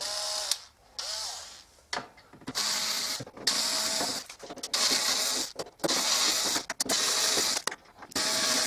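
A cordless power screwdriver running in repeated bursts of about a second each, its motor whining up at the start of some bursts, as it backs screws out of the dishwasher's panels.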